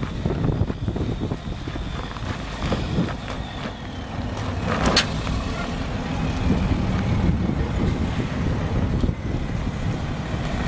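International DT466E 7.6-litre straight-six diesel running steadily at idle, with wind buffeting the microphone. A single sharp click about five seconds in.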